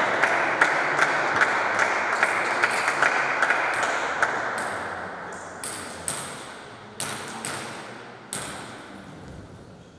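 A celluloid table tennis ball bounced again and again in a quick, even rhythm of light ticks, about two and a half a second, then a rally: sharper separate knocks of the ball on bats and table about half a second to a second apart, echoing in the hall.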